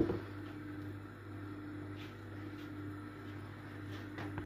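A steady low mechanical hum, with a sharp knock right at the start and a faint tick near the end.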